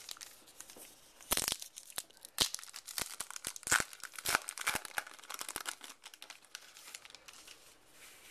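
A baseball card pack wrapper being torn open and crinkled: a run of sharp, irregular crackles for several seconds.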